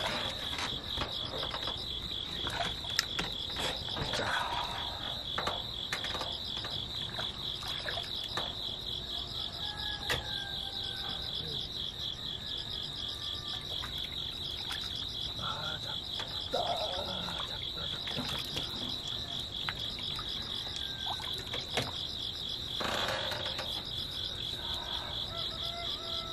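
Night chorus of crickets trilling steadily in a fast, even pulse, with short frog calls now and then and a few scattered clicks.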